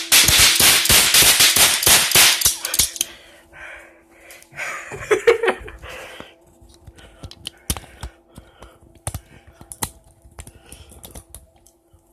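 Cap guns firing: a fast, loud string of sharp snapping shots for about three seconds, then scattered single snaps and clicks.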